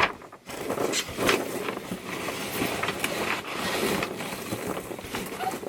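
Packaging being handled: steady rustling and crinkling with scattered light knocks and clicks.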